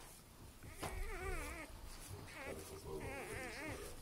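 Newborn Northern Inuit wolfdog puppies crying: high, warbling squeals, a longer one about a second in, a short one in the middle and another long one near the end.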